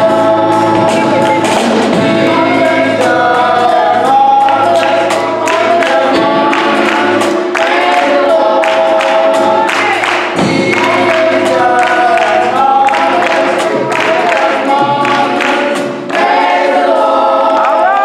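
Youth gospel choir singing in harmony.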